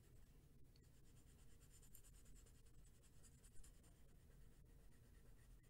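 Faint scratching of a Derwent Inktense ink pencil colouring on postcard paper, with a slightly louder stroke about three and a half seconds in.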